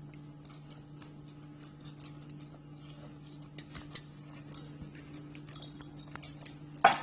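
Soft, scattered taps and ticks of fingers pressing cinnamon-bun dough flat against the bottom of a pan, over a faint steady hum, with one sharper knock near the end.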